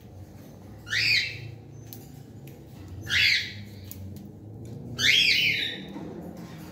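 Cockatiel squawking: three short, harsh calls, each under half a second, about two seconds apart.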